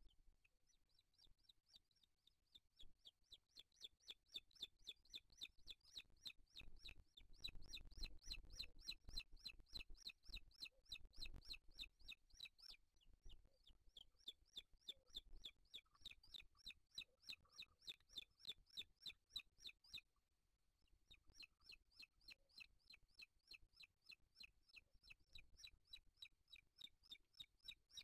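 Booted eaglet begging: a faint, rapid run of short, thin, high calls, about four a second, kept up with only a brief break about two-thirds of the way through.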